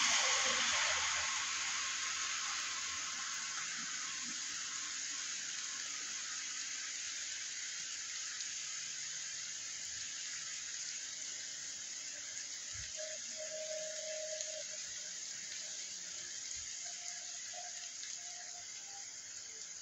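Steady rain falling on a wet street, heard as an even hiss. At the start, a car's tyres swish away on the wet road and fade out over the first couple of seconds.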